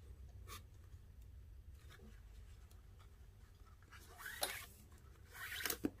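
Paracord swishing and rubbing as the strands are handled and drawn through a knot on a jig, with two louder drawn-out swishes about four and a half and five and a half seconds in.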